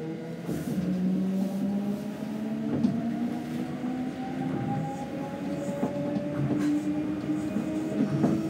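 Tokyo Monorail train's electric traction motors whining, several tones climbing slowly in pitch as a train gathers speed, with a few clicks and knocks over the station hum.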